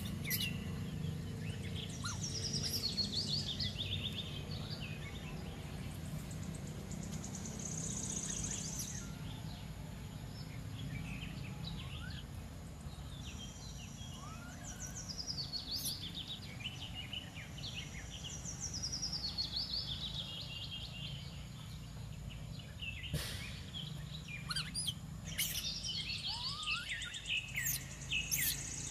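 Birds singing: several runs of quick high chirps, each run falling in pitch. Under them runs a steady low rumble of outdoor background noise.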